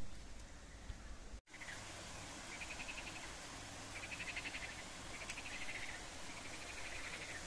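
Short, rapidly pulsed trilling calls from a small animal, repeating about once a second, over a steady rush of flowing water. The calls begin after a brief dropout about a second and a half in.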